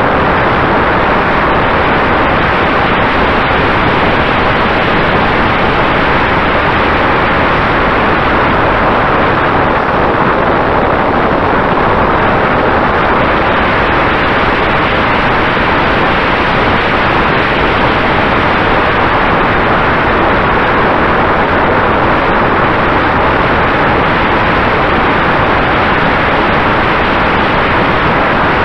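Loud, steady rush of airflow and propeller noise picked up by a camera riding on a Mini Talon RC plane in cruising flight, driven by a Sunnysky 2212 brushless motor. A faint steady tone runs underneath.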